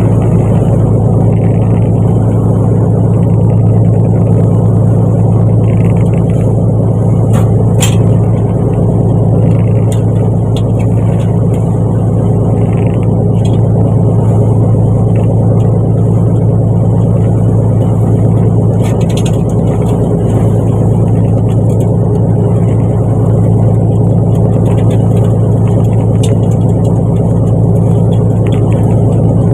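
Fishing boat's engine running steadily, a loud even hum with a strong low drone that holds the same pitch throughout, with a few faint ticks over it.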